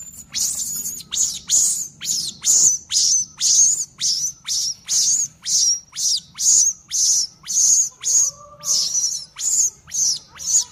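Infant macaque giving shrill distress screams, short high calls repeated about twice a second, the cry of a baby left by its mother. Around eight seconds in, a lower gliding call sounds briefly.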